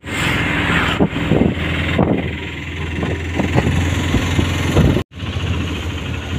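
Auto-rickshaw engine running while riding, with rattles and knocks from the cab over the road and wind and road noise through the open side. The sound cuts out briefly about five seconds in.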